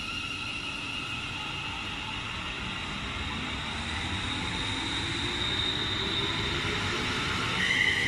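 Class 350 Desiro electric multiple unit moving past along the platform. Its traction motors whine in several tones that climb steadily in pitch as the train gathers speed.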